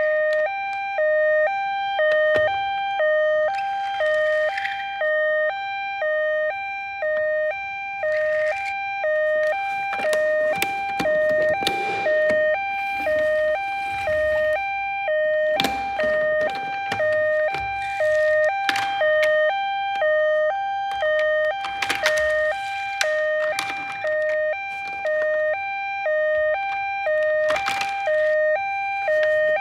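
Toy ambulance's electronic two-tone siren, alternating steadily between a low and a high note, with scattered plastic clicks and knocks from handling the toys over it.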